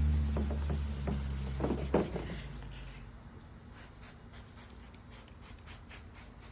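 Wet 400-grit sandpaper being rubbed by hand on a plastic headlight lens, in short repeated scratchy strokes. A low steady hum stops about two seconds in.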